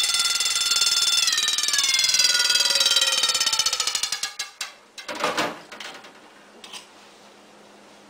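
Wind-up mechanical alarm bell ringing: a rapid, continuous run of clapper strikes on the metal gong. About four seconds in, as the bell is pushed under water, the strikes thin out and the ringing dies away, with a splash of water just after.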